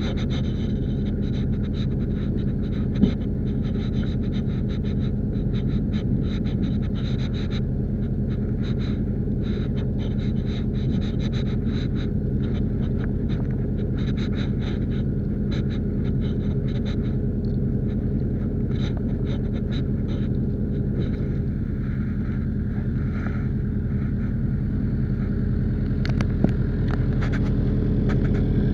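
Case backhoe loader's diesel engine running steadily at a constant speed, with light ticking and rattling over it and a single knock about three seconds in.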